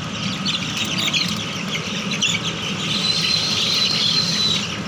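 A large flock of eight-day-old broiler chicks peeping, many high chirps overlapping, over a steady low machine hum. A thin, steady high tone sounds for about a second and a half past the middle.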